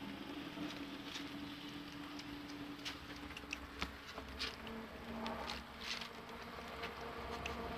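A puppy eating papaya in a cardboard box: scattered small clicks, smacks and rustles as it chews and shifts on the cardboard. A faint steady buzzing hum runs underneath and drops slightly in pitch about four seconds in.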